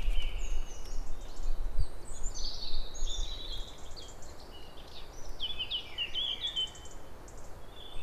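Several small songbirds singing in the woods, with overlapping warbling phrases and quick chirps throughout. Under them runs a low rumble that is stronger in the first half.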